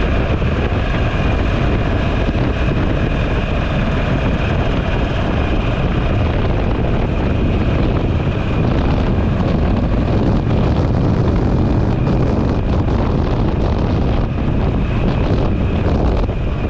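Buell motorcycle engine running under way, with wind buffeting the microphone.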